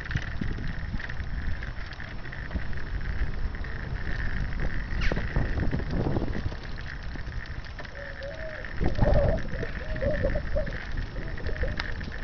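Wind rumbling on the microphone with the steady low noise of moving along a wet brick street. About nine seconds in there is a short wavering high-pitched sound.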